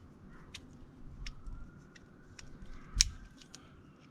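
Small plastic and metal clicks from a Haibo Arise Air BFS baitcasting reel being handled and adjusted, with one sharp snap about three seconds in.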